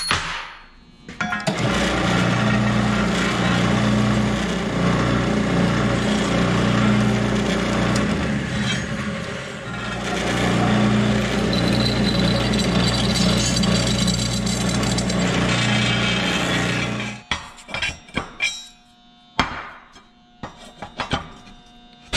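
Drill press running and drilling through steel square tubing: a steady motor hum under a loud cutting noise, with a brief dip partway through, stopping about three-quarters of the way in. A few short knocks and clatters follow as the steel is handled.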